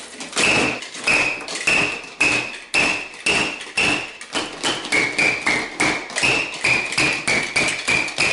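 Plastic toy hammer pounding chocolate pieces on a tabletop, about two blows a second and getting a little quicker. Each blow is a knock followed by a short, high squeak.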